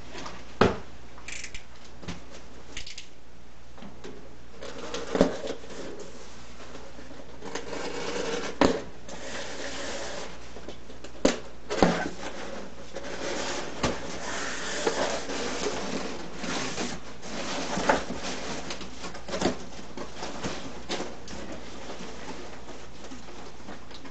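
Unboxing handling sounds: packaging rustling and shifting, broken by a dozen or so sharp knocks and clicks at irregular intervals.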